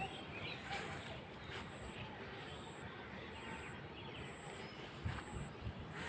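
Outdoor ambience: a steady hiss with faint, high-pitched chirps repeating about once a second. A few low bumps come near the end.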